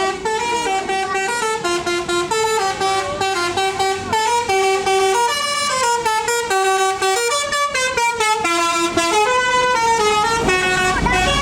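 A bus's multi-tone telolet horn playing a quick melody of stepping notes without a break. A low engine rumble comes in near the end.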